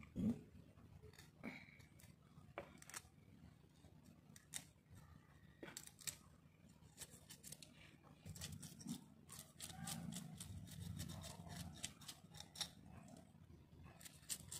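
Fish being cut by hand: a run of short, sharp clicks and snips that come thick and fast in the second half, over faint handling noise.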